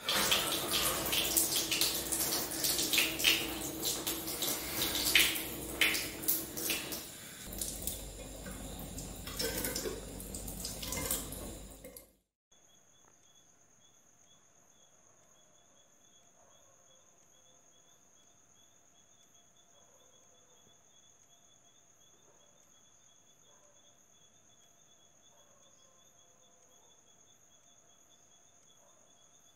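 Kitchen tap running hard into a metal sink, water splashing loudly and unevenly, cutting off suddenly about twelve seconds in. After that, near silence with a faint, steady, high-pitched trill.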